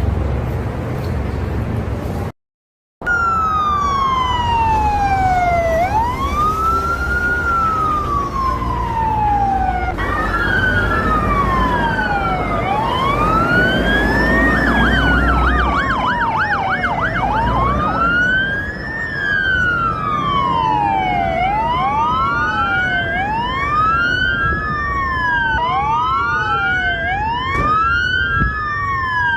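Several emergency-vehicle sirens wailing at once, their tones rising and falling out of step, with more sirens joining as it goes on and a brief fast yelp partway through. It opens with a low rumble that cuts out for a moment before the sirens begin.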